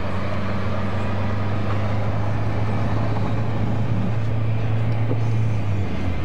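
Honda Prelude's four-cylinder engine and tyres heard from inside the cabin while cruising on a highway: a steady low engine drone over road noise, the drone easing slightly near the end.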